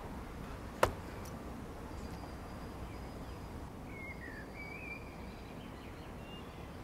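Steady outdoor background noise with a single sharp click about a second in and a few faint bird chirps around four to five seconds in.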